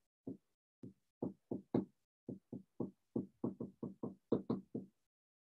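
Dry-erase marker tapping and stroking on a whiteboard as capital letters are written: a quick, uneven run of about sixteen short, light taps that stops shortly before the end.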